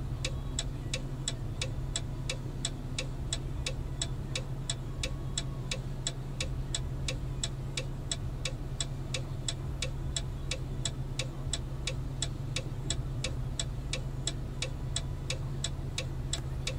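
An even, rhythmic ticking, about three short ticks a second, over a steady low hum.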